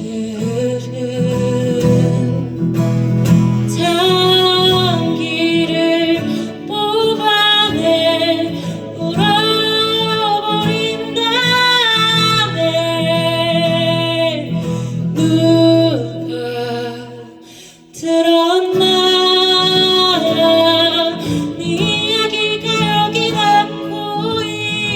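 Live indie band music: a singer holds long, wavering notes over guitar. The music drops away briefly about two-thirds of the way through, then comes back in.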